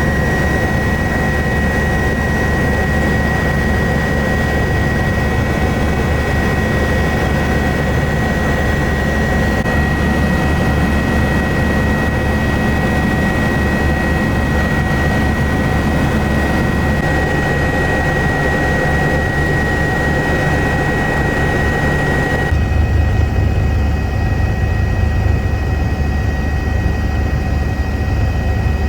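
Eurocopter EC145 twin-turbine helicopter in flight: a steady rotor and engine noise with a constant high-pitched whine over it. About 22 seconds in the sound shifts abruptly, duller and with more low rumble.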